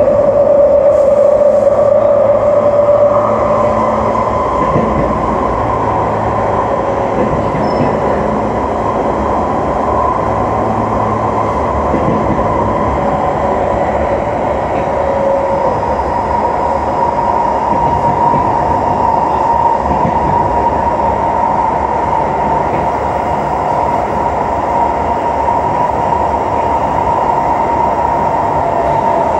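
Kawasaki C151 MRT train running between stations: steady rumble of wheels on track under a continuous traction-motor whine. A lower motor tone fades away in the first few seconds and the sound turns slightly quieter, then holds steady.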